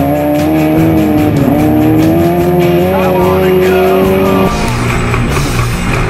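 Off-road race buggy engine running hard, its pitch climbing steadily, until the sound changes abruptly about four and a half seconds in.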